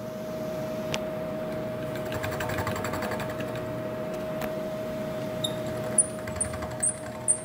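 Milling machine spindle running a 3/4-inch carbide end mill with a steady whine while it is hand-fed across a sprocket to face it off, the cutting noise swelling in the middle. A few sharp ticks near the end.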